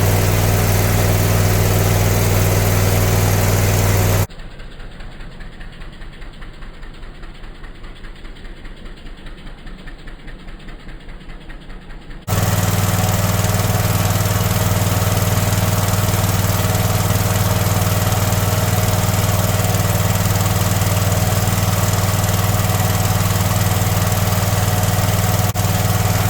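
Portable petrol generator, fitted with a dual-fuel LPG conversion kit, running steadily with a strong low hum. From about four seconds in, it drops for some eight seconds to a quieter, evenly pulsing engine sound, then returns to full level.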